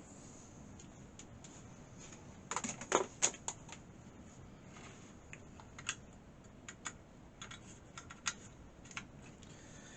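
Irregular plastic clicks and taps from a computer keyboard and mouse being handled and connected, with a quick cluster of louder clicks around three seconds in and sparser single ones after.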